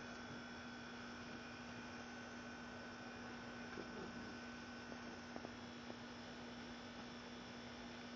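Steady electrical hum over a low hiss of background noise, with a few faint clicks about five to six seconds in.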